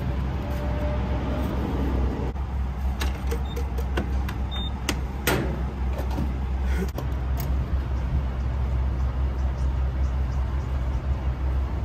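Gas-pump refuelling sounds: a steady low hum runs throughout, under a scatter of sharp clicks and knocks from the pump and nozzle being handled, with a couple of short high beeps from the pump's keypad.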